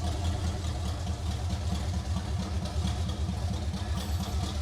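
C4 Corvette's V8 engine idling steadily with an even, lumpy pulse, just after being started.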